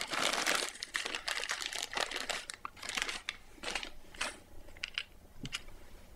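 Small clear plastic bag crinkling as it is handled to get small wire hanging rings out, densest over the first two and a half seconds, then a few short separate rustles and clicks.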